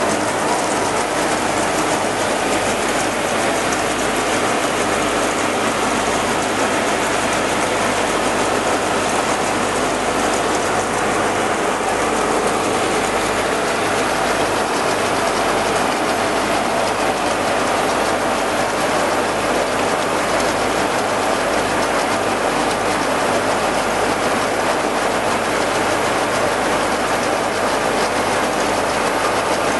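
Grain augers, among them a yellow J208-36, running under load as they carry grain from a truck's hopper up into silos: a steady, dense mechanical rattle with the hiss of moving grain.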